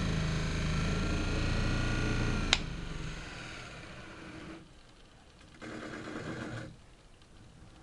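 Small bench grinder fitted with a paste-dressed polishing wheel, running with a steady hum while a wood-carving chisel is polished on it. About two and a half seconds in there is a sharp click, after which the motor winds down and fades. A short burst of noise comes about six seconds in.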